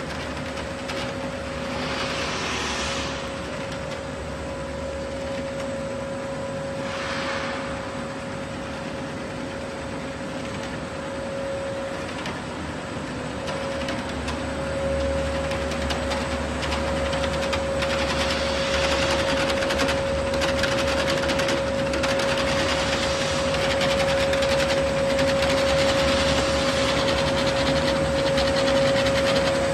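Mono-layer LDPE blown-film extrusion line running: a steady mechanical hum with a steady whine held throughout, getting somewhat louder about halfway through.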